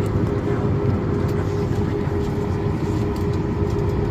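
Steady cabin noise of a jet airliner after landing: a low, even rumble with a constant hum above it.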